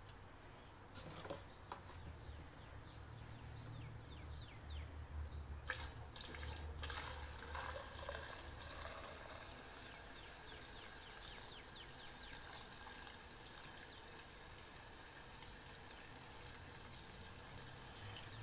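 Gasoline being poured from a can into a Predator 3500-watt inverter generator's fuel tank: a faint, steady trickle of liquid.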